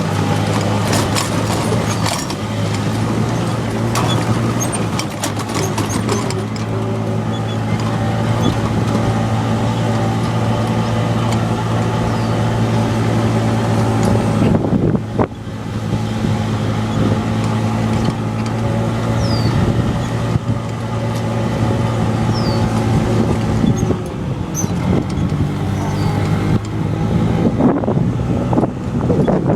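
Off-road golf cart's motor running steadily as it drives, with a low hum and scattered knocks and rattles in the first few seconds. The hum dips briefly about halfway through and fades out later, leaving a rougher noise near the end.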